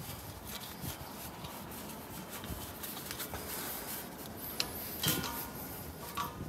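Quiet rubbing and small clicks of a hand-wheel gas regulator being unscrewed from an LPG cylinder valve, with jacket fabric rustling.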